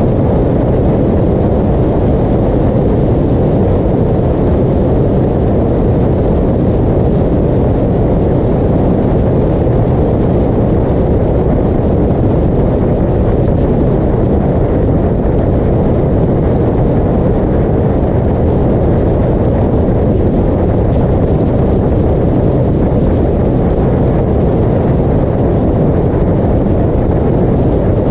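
Motorcycle cruising steadily at highway speed: a loud, unbroken rush of wind on the microphone, mixed with engine and road noise.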